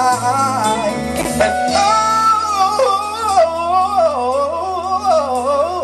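Live pop-soul music: a man singing a long, sliding vocal run over acoustic guitar and electric bass.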